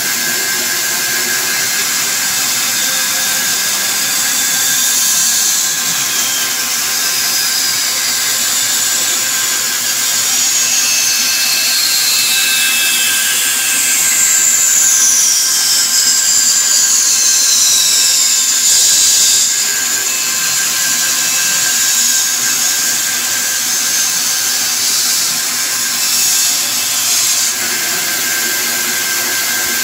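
Bandsaw running and cutting through a wooden board, a steady high whine throughout. Midway, several high tones slide down in pitch one after another.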